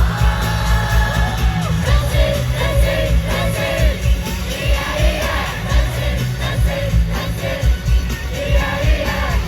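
Live pop dance music played over an arena sound system, with a heavy, steady beat and a singing voice that comes in about two seconds in, and the crowd audible in the mix.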